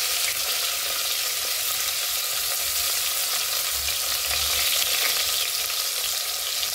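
Sliced onions and green chilli sizzling steadily in hot oil in an open pressure cooker, the oil already hot with whole spices frying in it.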